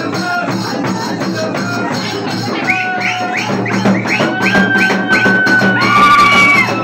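Loud rhythmic percussion music, drums with rattling shakers, with a high held melody line coming in over it about halfway through.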